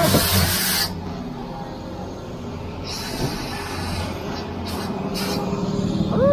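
A loud hiss that cuts off about a second in, then a truck engine running steadily, with short hisses around the middle and near the end.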